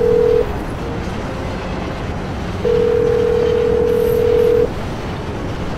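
Telephone ringback tone: a steady ring about two seconds long that ends about half a second in and sounds again from about two and a half seconds in, over a steady rumbling background noise.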